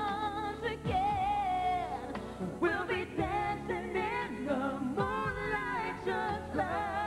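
Pop ballad duet sung live by a woman and a man, with long held notes and vibrato, over a band of bass, drums, keyboards and guitar.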